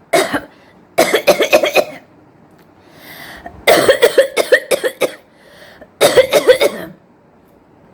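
A woman coughing on purpose: one short cough, then three fits of rapid coughs in quick succession, with pauses between them.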